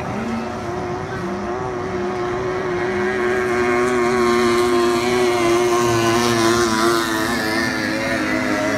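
Outboard engine of a 50 hp tunnel-hull racing boat running flat out as it passes close by. It grows louder toward the middle and then fades as the boat pulls away.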